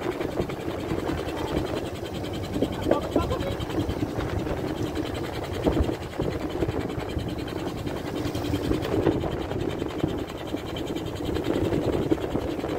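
Fishing boat's engine running steadily, with a few faint knocks about midway.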